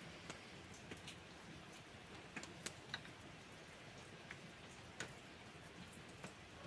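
Near silence: faint room hiss with a handful of soft, irregularly spaced clicks.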